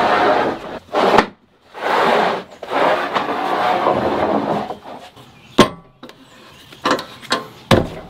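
Rough-sawn wooden boards scraping as they are dragged and slid, in two long stretches, then a few sharp knocks as the boards are set down on the steel bed of a sawmill.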